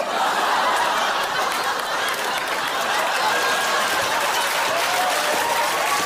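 Studio audience laughing and applauding together, breaking out suddenly and holding as a steady wash of clapping and laughter.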